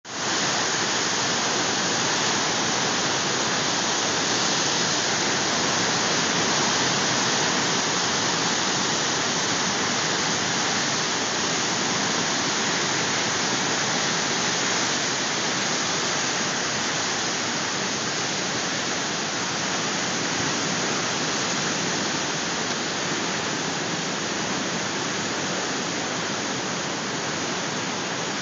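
Great Falls of the Potomac River running moderately high after heavy rain upstream: a steady, unbroken rush of floodwater pouring through the rapids.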